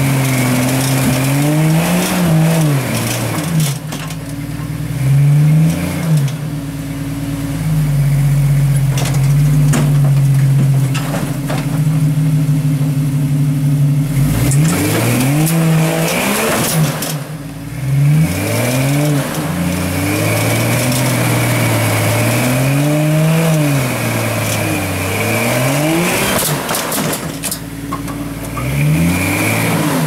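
Rock buggy's engine revving up and falling back in repeated swells as it crawls up a boulder ledge, with scattered sharp knocks.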